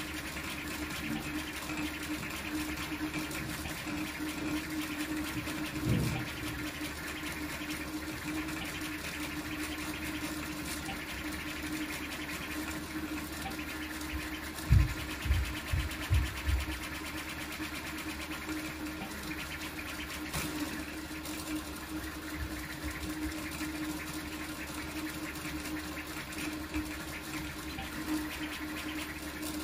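Large toolchanger 3D printer printing at high speed: its motors and fans give a steady hum with a fluttering whine as the toolhead makes short, fast moves over a small part. A low thump comes about six seconds in, and a quick run of four or five low thumps about halfway through.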